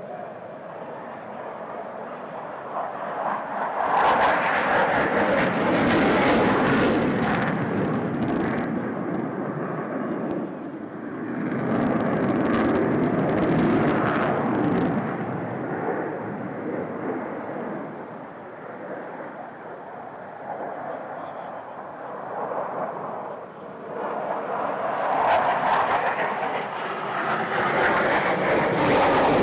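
Jet noise from a Sukhoi PAK FA fighter flying past, swelling to a loud rush and dying away three times: a few seconds in, about midway, and near the end.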